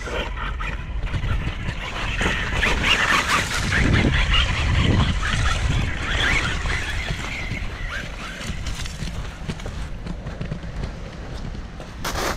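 Wind buffeting the microphone, with the hissing crunch of an Axial RYFT RC crawler's Pro-Line Black Mamba tires churning through sand, loudest from about two to seven seconds in.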